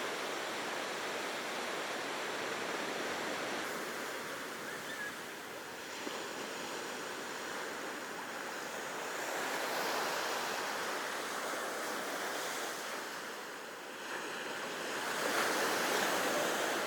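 Ocean surf breaking and washing up the beach, a steady rushing that swells louder about ten seconds in and again near the end.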